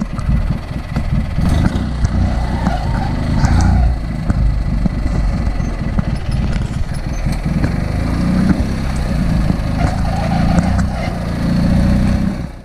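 Engine of a custom off-road lawn tractor running as it crawls over rough ground, its revs rising and falling.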